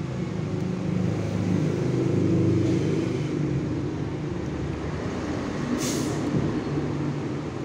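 Hot-air rework station blowing, a steady fan hum and rush of air as it heats a phone's charging connector to melt its solder. A short high hiss about six seconds in.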